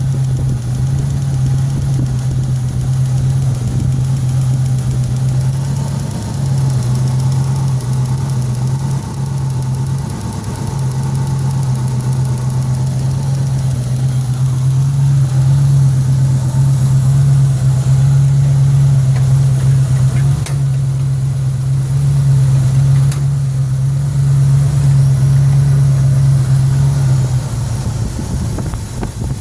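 Oldsmobile 403 V8 idling steadily with its valve covers off and the valve train exposed, running with a ticking from the valve train that the owner is trying to trace.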